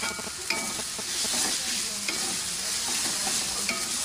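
Ground spice paste sizzling as it is stir-fried in a wok until fragrant, with a metal spatula scraping and clinking against the pan a few times.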